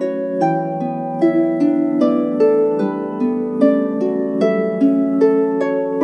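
Celtic harp playing a calm melody of plucked notes, about two or three a second, each note ringing on over a low sustained bass note.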